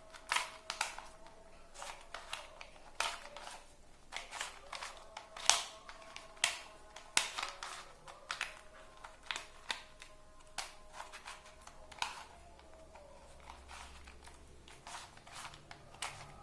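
Plastic Rubik's cube being twisted by hand: irregular sharp clicks and clacks as the layers turn, a few per second with some louder snaps.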